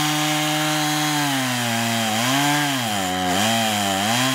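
Gasoline chainsaw running at high revs, steady at first, then its pitch dipping and recovering several times in the second half as the engine is loaded and eased off.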